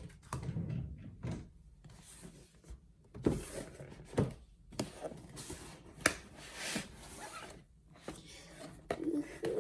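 Keyboard packaging being handled during unboxing: a few scattered sharp knocks and thunks, with some rustling between them.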